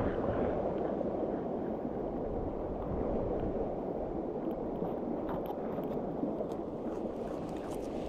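Steady rushing of river water, with a few faint clicks in the second half.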